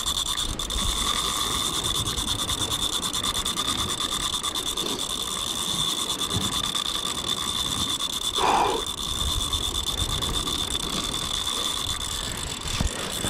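Daiwa Saltiga 8000 spinning reel's drag clicking rapidly and steadily as a big false albacore pulls line off against it. A brief louder sound comes about eight seconds in.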